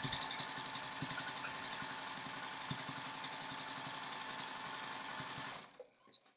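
Juki sewing machine stitching a straight quilting line through a quilt, running steadily at speed, then stopping abruptly near the end, followed by a few faint clicks.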